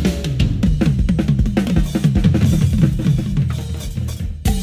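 A drum kit played with many quick hits on the drums. It ends in one loud hit and a sudden stop near the end.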